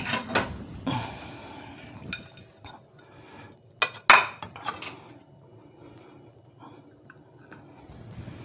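Ceramic plate clinking on a granite countertop as rolls are placed on it: a few light knocks, with one sharp clink about four seconds in.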